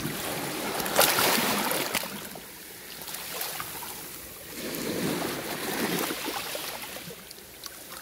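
Small sea waves lapping and washing over a pebbly shore. The wash swells twice, about a second in and again around five seconds in.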